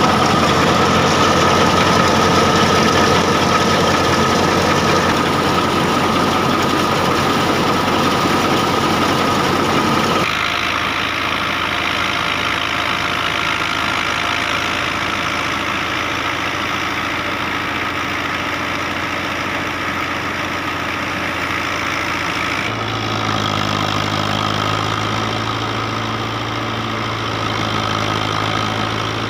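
Tractor-driven wheat thresher running steadily, its drum and sieves churning grain and straw, with the Dabang 85 tractor's diesel engine running under load to power it. The sound shifts abruptly about ten seconds in and again near the end, where the tractor engine's steady low hum takes over.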